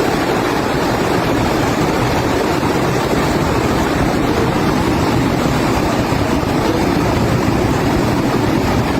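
Steady, loud rush of fast-flowing floodwater, an even noise without any pitched tone.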